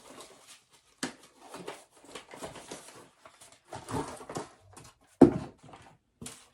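Cardboard box and plastic vacuum parts being handled and unpacked: irregular rustling and light knocks, with one sharp knock about five seconds in.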